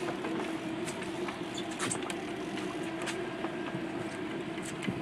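Fishing boat's engine running with a steady drone over a haze of wind and water noise, with scattered faint ticks.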